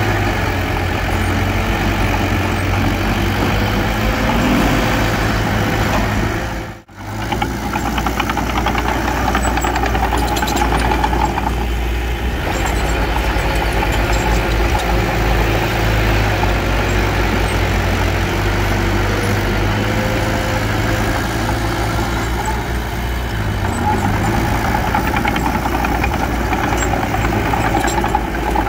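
Small bulldozer's diesel engine running steadily, with a knocking, clattering note. The sound drops out for an instant about seven seconds in.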